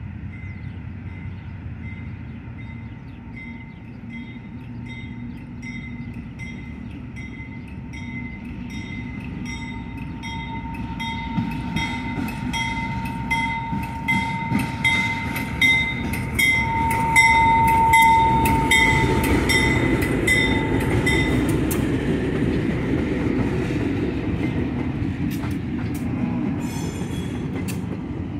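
A pair of GE C36 diesel-electric locomotives rolls past slowly. The engine rumble and a steady whine grow to their loudest about two-thirds of the way in. A ding repeats about twice a second through most of it and stops about three-quarters in, and wheels click over the rail joints as the flatcar passes near the end.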